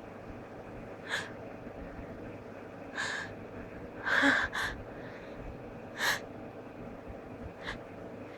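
A person's short, sharp gasping in-breaths, five or six of them, loudest as a double gasp about four seconds in: the catching breaths of a stuck sneeze that won't come out.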